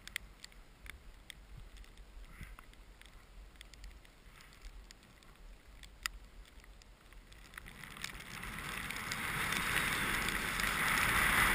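Skis sliding over snow: faint, with scattered light ticks at first, then a hiss that builds steadily louder from about eight seconds in as the skier picks up speed downhill.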